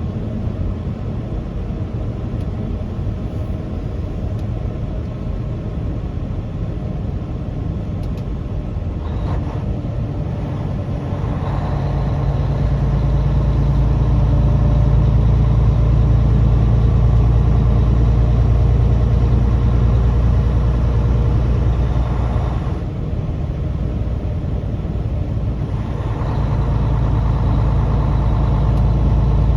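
Truck engine and road noise while driving. The engine note gets louder and steadier about eleven seconds in, dips briefly about two-thirds of the way through, then picks up again.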